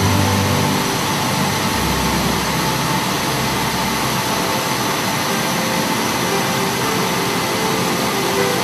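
Steady machining noise from a CNC turn-mill machine's cutter working a steel diesel crankshaft under flood coolant, an even whooshing whir with a low hum that fades out about four seconds in.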